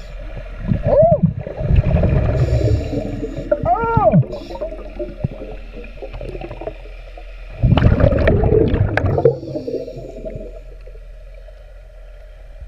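Underwater sound of a scuba diver breathing through a regulator, with loud rushes of exhaled bubbles about two seconds in and again about eight seconds in. A few short whines that rise and fall in pitch run through the first half.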